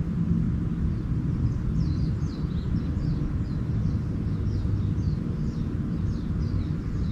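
Small birds chirping faintly in quick runs of short, downward-sliding notes, starting about a second and a half in. Under them runs a steady low rumble, which is the loudest sound.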